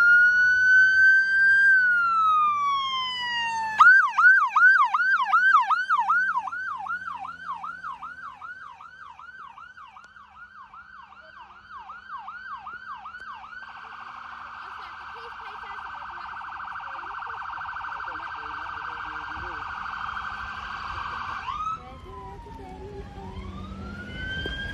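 Electronic emergency-vehicle siren cycling through its tones: a slow rising and falling wail, then a fast yelp of about four sweeps a second from about four seconds in, then a very rapid warble, and a slow wail again near the end. It fades after the first few seconds, then grows louder again.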